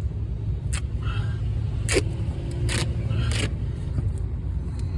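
Steady low rumble throughout, with about four short rasping strips of duct tape being pulled while carpet pad is taped down to tackless strip.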